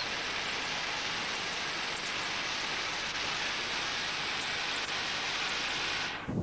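Steady hissing rush inside the cab of a South African Railways class 25 condensing steam locomotive on the move, with no exhaust beat; it stops abruptly near the end.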